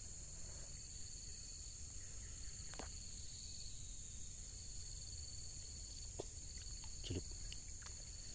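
A steady, high-pitched chorus of insects at two pitches, with a few faint short clicks now and then, about three seconds in and again near the end.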